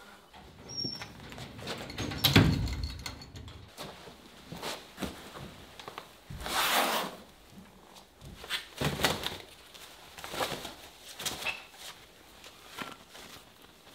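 Scattered knocks, rustling and shuffling as a person moves about and handles a young turkey, with a louder thump about two seconds in and a longer rustle near the middle.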